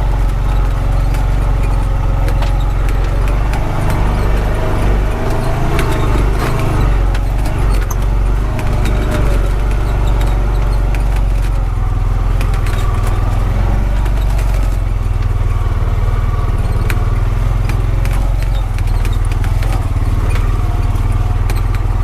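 Honda Pioneer 520 side-by-side driving along a rough logging road, its engine running at a steady low pitch, with scattered clicks and rattles throughout.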